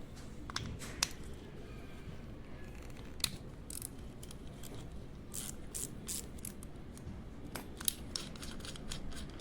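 Irregular clicks and light metallic taps of small parts and tools being handled, over a low background rumble, with a few sharper clicks about a second in, past three seconds and near the end.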